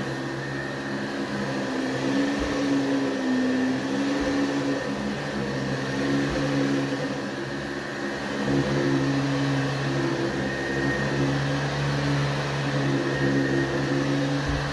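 1977 Hoover/JCPenney Convertible upright vacuum cleaner running: a steady motor hum over a rush of air, its pitch shifting slightly a few times.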